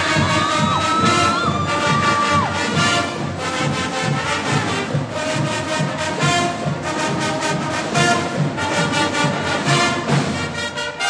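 Marching band (banda marcial) playing a brass piece, trumpets and other brass in full sound over a steady percussion beat.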